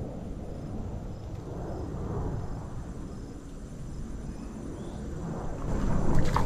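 Faint insects chirping in short repeated pulses over a low, steady rumble, which grows louder with a few knocks near the end.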